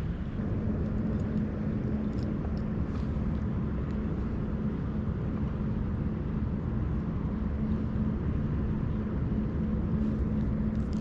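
Steady low rumble of road traffic with a constant low hum running under it.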